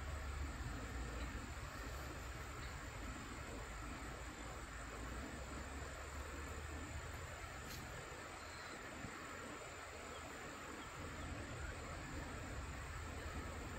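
Insects chirping steadily, over a low rumble that swells near the start and again near the end.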